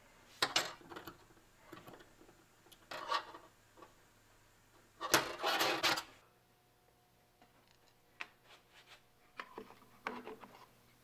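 Small metal engine parts being handled on a steel workbench: scattered clinks, taps and scrapes, with a louder rasping scrape about five seconds in that lasts under a second.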